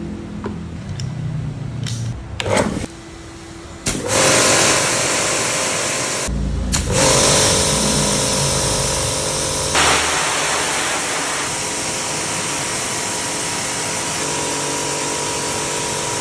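High-pressure washer running and spraying: a steady motor hum under a loud hiss of the water jet, starting about four seconds in. The spray stops briefly about six seconds in, then runs on steadily.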